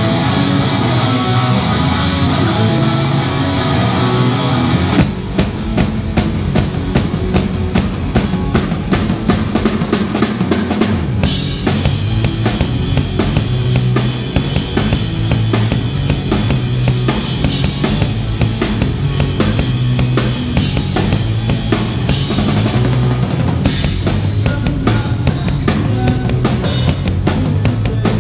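Live rock band playing, its drum kit up front: sustained chords with a few separate drum hits at first, then about five seconds in the drums start a steady, even beat, and at about eleven seconds the full band comes in with cymbals.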